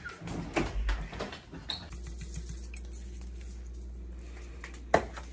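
Small clinks and scrapes of a spoon in a spice jar as a spoonful of cinnamon is scooped, with one sharp clink near the end. A steady low hum runs underneath from about two seconds in, after some brief knocks and rustling.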